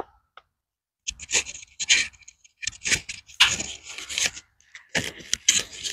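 Clip-on microphone being handled and fitted to a shirt, with cloth rubbing and scratching right against it in irregular bursts from about a second in.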